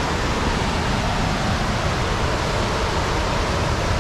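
Steady, loud rush of the fast-flowing Merced River above a waterfall.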